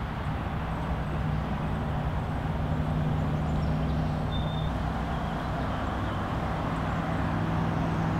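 Steady low engine hum of a motor vehicle over outdoor background noise, coming in just after the start and holding for several seconds.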